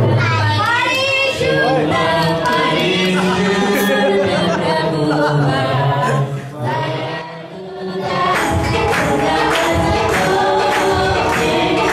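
A congregation of many voices singing together, joined by a steady percussive beat from about eight seconds in.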